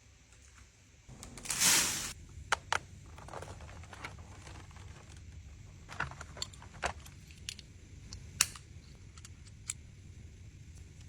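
Kitchen items being handled: a short rustle about a second in, then scattered light clicks and taps of containers being set down and moved.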